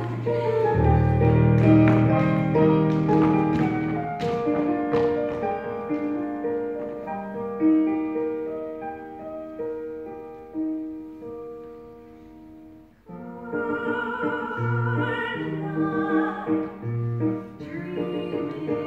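Musical accompaniment with piano: sustained closing chords that fade away over about thirteen seconds, then a new passage starts suddenly with a low bass note about once a second under a wavering melody.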